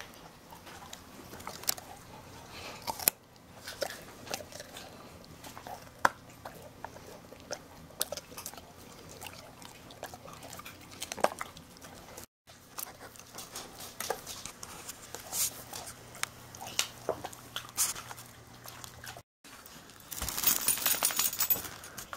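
A dog crunching carrot pieces: irregular sharp crunches and chewing clicks. Near the end a louder, denser burst of rattling.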